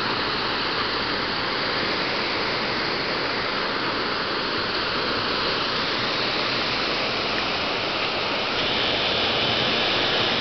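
Steady rushing of a fast river in flood, swollen by hours of rain, its current running hard.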